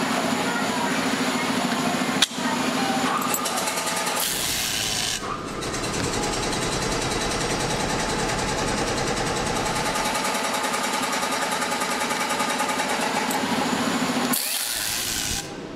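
Workshop machinery running steadily, with two hissing bursts of about a second each from a pneumatic screwdriver, about four seconds in and near the end, as screws go into a pressure cooker's handle bracket. A single sharp click comes about two seconds in.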